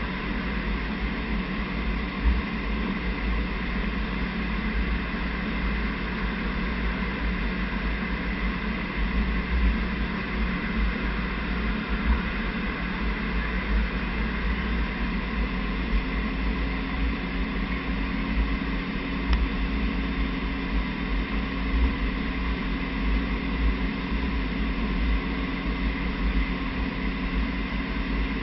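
Steady noise inside a Eurofighter Typhoon fighter's cockpit in flight: a constant drone of engine and airflow with a steady high whine over a low rumble. A further low hum joins about halfway through.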